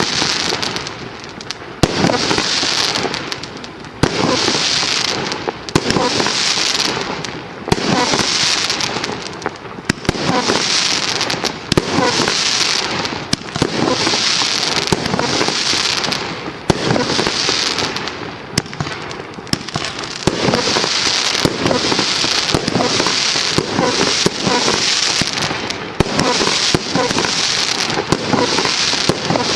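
A 50-shot, 1.2-inch compound consumer firework cake firing shot after shot: a sharp report about every two seconds, each followed by a hissing, crackling shower from the trailing glitter and strobe effects that fades before the next shot.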